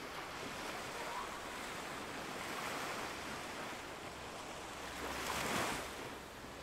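Ocean waves washing in steadily with wind, one wave swelling louder about five seconds in.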